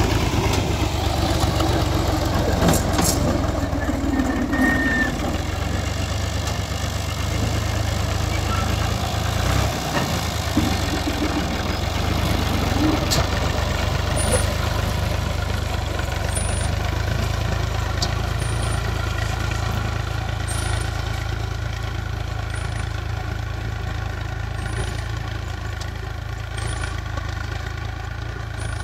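Al-Ghazi tractor's diesel engine running steadily under load as it pulls a seed drill, slowly growing fainter as it moves away.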